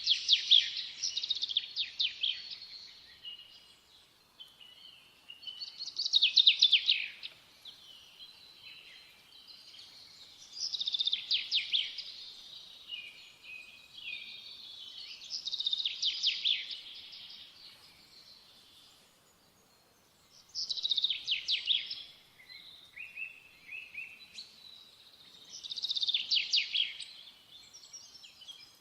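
A songbird singing in repeated phrases about every five seconds, each a quick, high-pitched run of notes lasting a couple of seconds, with softer twittering in between.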